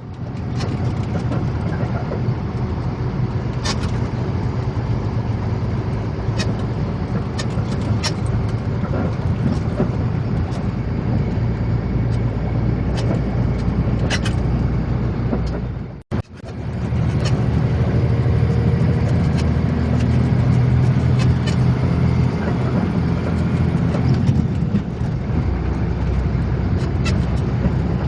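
Heavy truck engine running steadily with road noise, with scattered sharp clicks and rattles; the sound breaks off briefly about halfway through and resumes.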